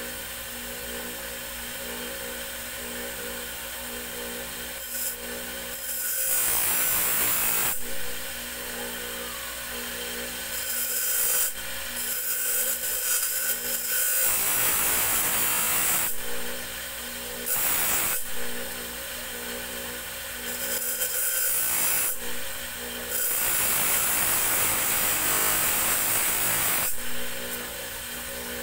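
A motorized grinding wheel runs with a steady hum. About five times, a steel tari blade is pressed against it freehand for a few seconds at a time, giving a loud, gritty grinding hiss as the blade is shaped.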